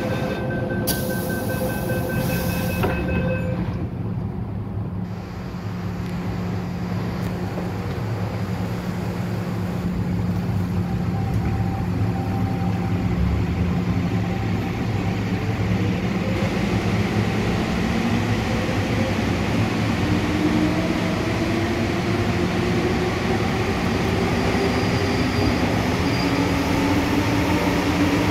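MTR M-Train metro car heard from inside: short repeated door-closing warning beeps for about two seconds, then the train pulls away, its traction motors whining with a pitch that climbs steadily as it gathers speed, over a steady hum and running noise.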